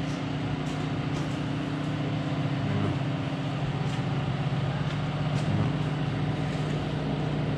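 A steady low mechanical hum, like a motor or engine running at constant speed, with a few faint clicks.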